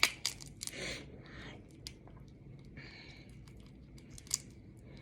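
Close-miked eating sounds: scattered sharp clicks and a few short crunchy, crinkly bursts of chewing and handling food.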